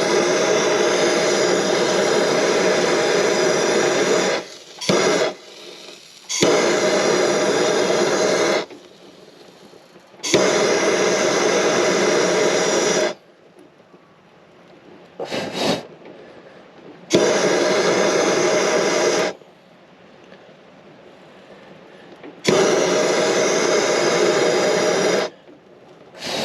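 An electric hand tool run in repeated bursts, a steady buzzing whir switched on and off about six times for two to six seconds each, with a couple of short blips between.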